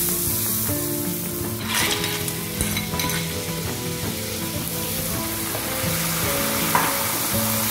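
A thick tomato and ñora pepper sofrito sizzling in a hot pan while being stirred with a spatula. Clams are tipped in with a clatter of shells about two seconds in, and Cava is poured over them later, where the sizzling goes on.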